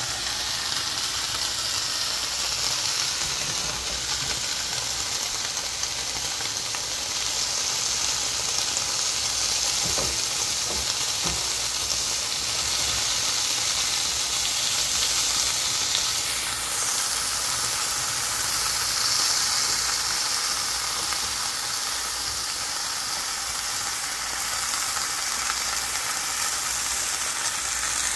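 Cubes of paneer sizzling steadily as they fry in a little oil in a pan. The sizzle swells and eases as the pieces are turned over with a fork.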